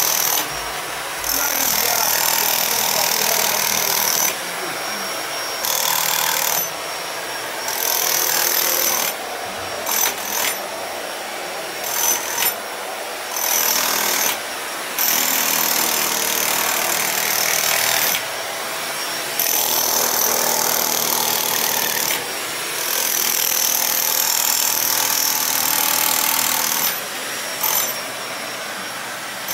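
Handheld electric rotary hammer with a chisel bit chipping concrete off a reinforced wall around steel rebar. It runs in bursts of one to several seconds, stopping briefly between them, about a dozen times.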